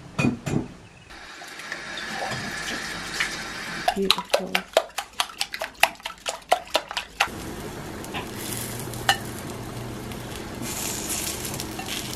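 A few kitchen knocks, then a wire whisk beating eggs in a ceramic bowl: a fast run of clinks against the bowl for about three seconds, over a steady hiss.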